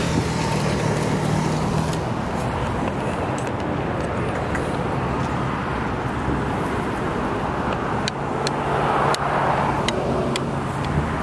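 Permobil F3 power wheelchair driving, its drive motors humming under steady road and traffic noise. The noise swells briefly about eight seconds in, and a few sharp clicks come near the end.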